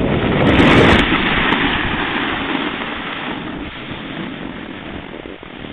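Rushing noise of skiing downhill with the camera: wind on the microphone and skis sliding over snow. It is loud for about the first second, then fades steadily.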